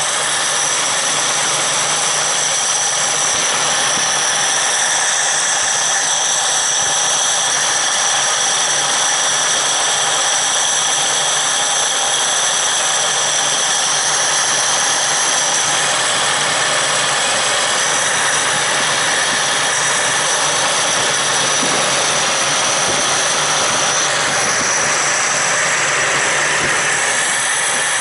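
Toyota Crown MS60's carbureted engine idling steadily, with a steady high-pitched whine over the running.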